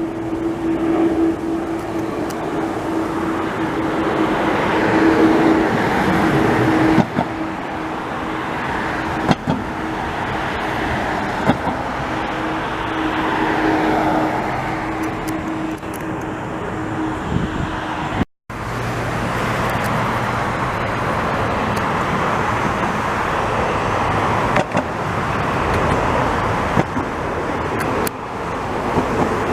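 Steady roar of engine noise, with a low hum that fades out about a third of the way through and a sudden brief dropout about two-thirds through.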